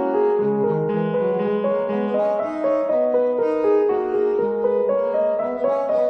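Background music: a piano playing a gentle melody of held notes.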